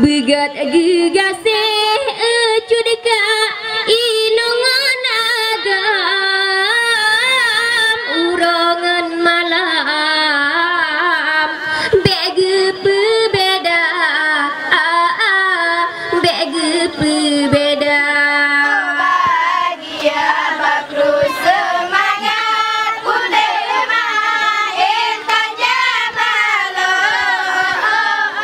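A woman singing a melismatic, heavily ornamented song into a microphone through a PA, the lead vocal for a traditional Acehnese seated group dance; her pitch wavers and slides continuously with no breaks.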